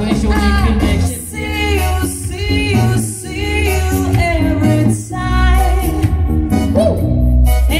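A woman singing live into a microphone, amplified over a musical accompaniment with a strong bass. She holds sustained notes that waver in pitch.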